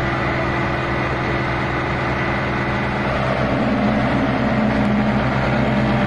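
Diesel engines of a New Holland 3630 and a John Deere tractor running hard against each other in a tug-of-war, pulling under heavy load. The engine sound steps up about three seconds in as the tractors strain and the wheels begin to spin.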